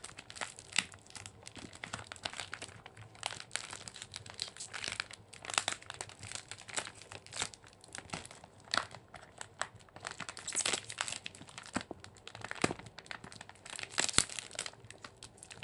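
Smartphone packaging being handled and worked open by hand: irregular crinkling and crackling with a few sharper, louder tearing noises. The package resists opening.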